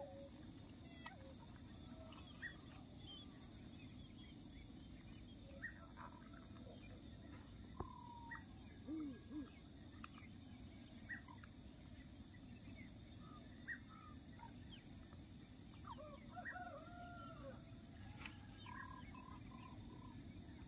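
Faint, scattered short calls of distant birds over a low, steady background rumble, with a few soft clicks.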